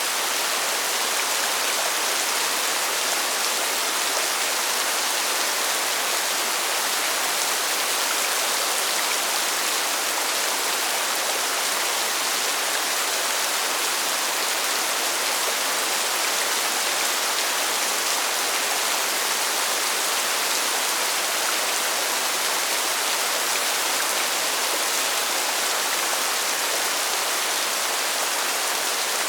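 Steady rainfall: an even, dense hiss of countless drops, strongest in the upper range, with no let-up.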